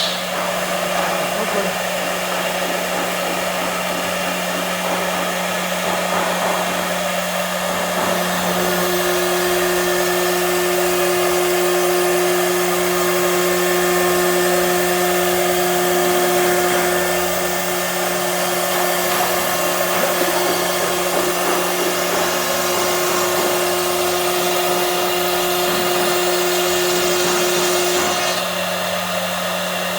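CNC machine running under Mach3 control, a steady motor whir. A higher steady tone joins about eight seconds in and stops near the end, as the machine's motors take on a different motion.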